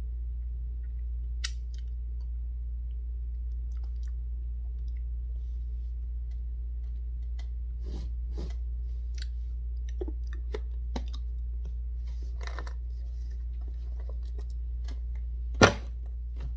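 Cheese puffs being crunched and chewed close to the microphone: scattered small crunches and clicks, busier in the second half, with one loud sharp click near the end, over a steady low hum.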